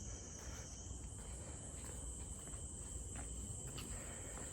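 Night chorus of insects, a steady high-pitched shrill trill that holds without a break, over a low rumble.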